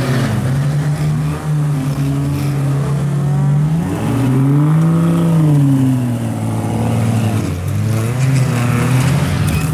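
Off-road 4x4 engines running close by, one revving up and easing back down about four to six seconds in, with smaller revs near the end.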